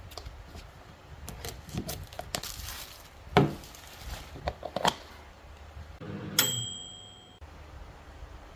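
Food-preparation handling sounds: crinkling and tearing of packaging with small clicks and clinks of dishes. About six seconds in comes one sharp clink that rings with a clear high tone for about a second, then cuts off suddenly.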